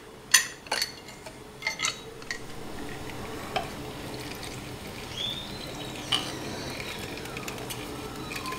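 Lime halves being squeezed in a hand-held citrus press over a food processor bowl: a few light clicks and knocks of handling in the first two seconds, then the faint squish and drip of juice.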